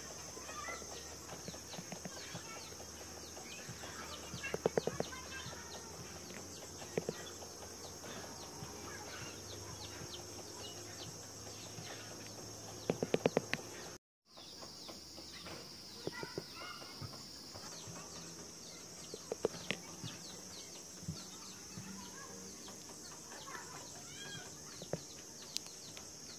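Spatula stirring thick ube cake batter in a bowl: scraping and light tapping against the bowl over a steady hiss, with a few short clusters of quick knocks. There is a brief dropout about halfway through.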